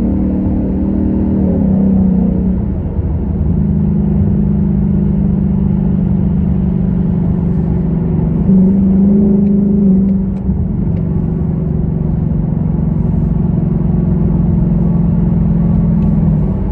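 2021 Mustang GT's 5.0-litre V8 running through an X-pipe exhaust while the car is driven at a fairly steady pace. The engine note dips about two seconds in, then rises and gets louder for a couple of seconds around the middle before settling again.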